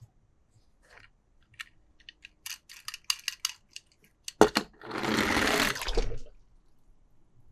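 Hard plastic toys and packaging being handled: a run of small clicks and taps, then a sharp knock about four and a half seconds in, followed by a rustling scrape lasting about a second and a half.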